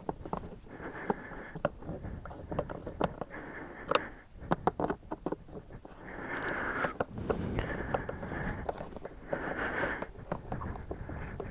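Hands working on a motorcycle's plastic airbox: scattered light clicks and knocks of parts being handled and fitted, with breathing close to the microphone every few seconds.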